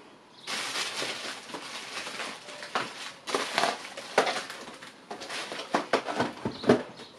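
Plastic packaging crinkling and rustling while packets of tackle are handled, with scattered sharp clicks and knocks. It starts about half a second in.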